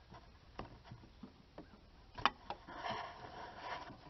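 Faint metal clicks and scraping as an A/C compressor clutch plate is worked loose and slid off its splined shaft by hand. Several separate clicks, one sharper a little past halfway, then a short stretch of rubbing near the end.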